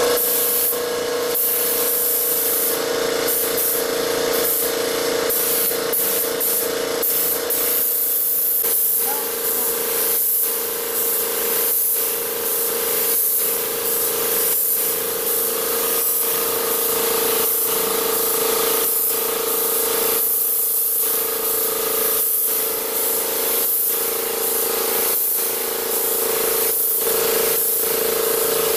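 Gravity-feed air spray gun hissing steadily as it sprays a finish onto wood, the hiss briefly breaking off again and again as the trigger is let go between passes. A steady hum runs underneath.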